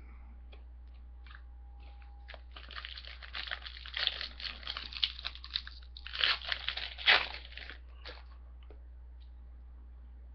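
Foil trading card pack wrapper being crinkled and torn open, a few seconds of crackling that grows loudest in the second half.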